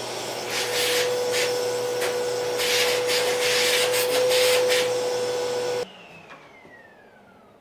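Shop vacuum running with a steady hum as its hose nozzle is worked into the corner of a freshly chiselled panel, with louder rushes of air as the nozzle meets the surface. It switches off abruptly about six seconds in, and the motor winds down with a falling whine.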